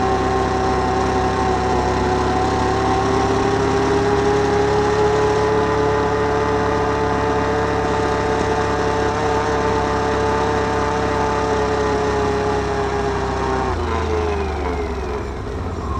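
Can-Am Outlander 1000 ATV's V-twin engine running at a steady pitch, then falling in pitch near the end as the revs drop off.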